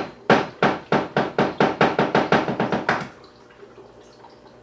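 A raw egg tapped over and over against the rim of a plastic mixing bowl to crack it: one sharp knock, then a quick, even run of about six knocks a second for nearly three seconds, stopping suddenly.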